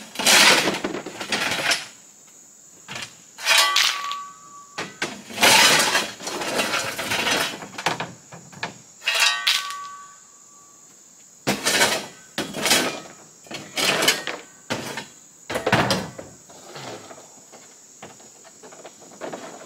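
Steel shovel scooping white rock out of a pickup bed: repeated scrapes and crunching clatters of stone, one every second or two, a few with a brief metallic ring from the shovel.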